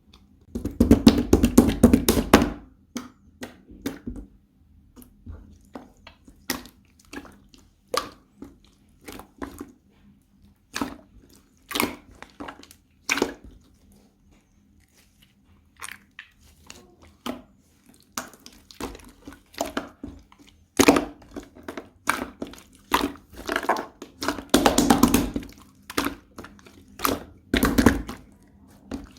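Slime being pressed, folded and poked by hand, giving a string of sharp, wet pops and clicks. The pops come in dense runs at the start and again from about twenty seconds in, with scattered single pops in between.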